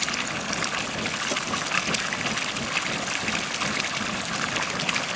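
Open wood fire of small sticks crackling and hissing steadily under a cooking pan, with frequent small snaps.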